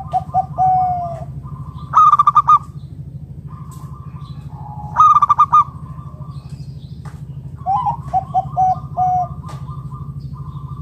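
Zebra dove (perkutut) cooing in repeated phrases: short rapid runs of notes about 2 and 5 seconds in, and a longer series of falling coos near the end. A steady low hum runs underneath.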